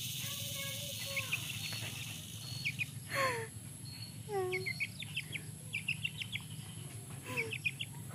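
Bird chirps and several short falling calls scattered through, over a steady high insect drone.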